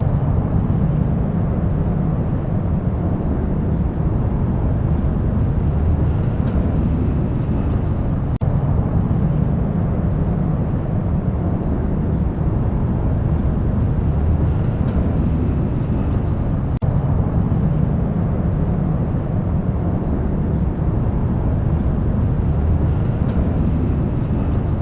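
Aeroplane engine noise: a steady, deep rumble that holds level throughout, cutting out for an instant twice.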